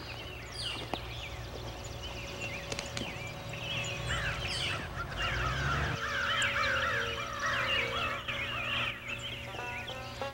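Fowl calling: a busy chatter of rapid, warbling calls that thickens from about halfway through, over a steady low hum.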